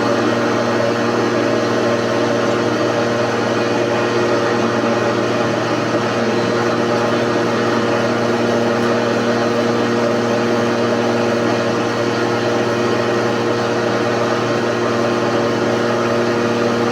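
Electric hand planer's motor running at a steady speed, a constant whine over a dense noise that holds unchanged throughout.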